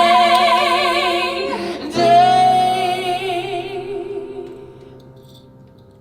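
A female voice holds a long, sung note with vibrato, over steady lower accompanying tones. It breaks off about a second and a half in, then sings another held note that fades out as the song ends.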